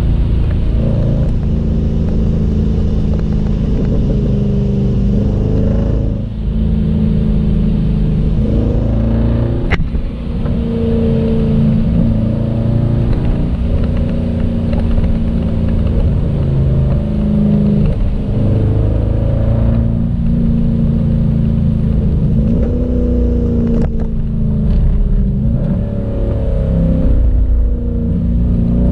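Jeep Grand Cherokee SRT's V8 and exhaust heard from inside the cabin while driving: a steady, loud drone whose pitch rises and falls with throttle. There are brief dips in level about 6 and 10 seconds in.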